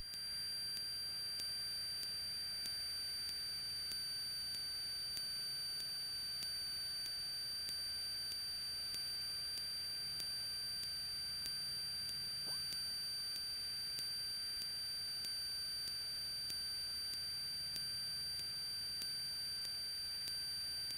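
Steady hiss of an aircraft intercom audio feed recorded through a direct cable, with several faint steady high-pitched electrical whines and a faint low hum underneath.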